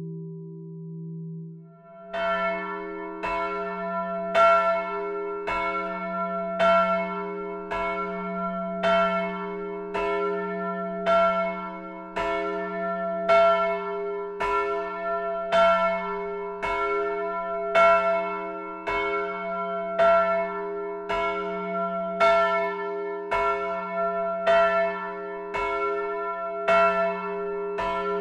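Motor-swung church bells of a tuned peal ringing. About two seconds in, a steady run of overlapping clangs starts, the loudest strokes coming about every two seconds, with the bells' hum ringing on between them. Before that there is a held steady tone.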